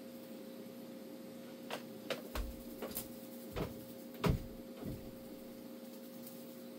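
Quiet indoor room tone with a steady, faint electrical hum and a scattering of small clicks and knocks, the loudest about four seconds in.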